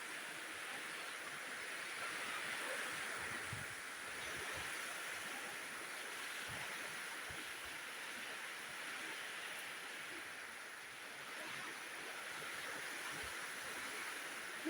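Steady hiss of heavy rain falling, swelling slightly for a second or so about two seconds in.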